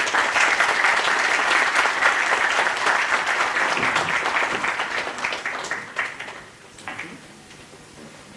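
Audience applause, dense and steady for about six seconds, then thinning to a few last separate claps and dying away.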